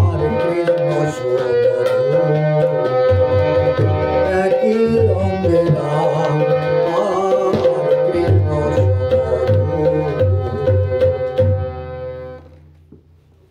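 A man singing to tabla accompaniment, with the tabla's low bass-drum notes and held accompanying tones under the voice. The music ends about twelve seconds in and dies away.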